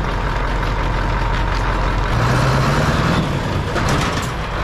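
Scania truck's diesel engine pulling away, its pitch rising as it accelerates about two seconds in, then easing off.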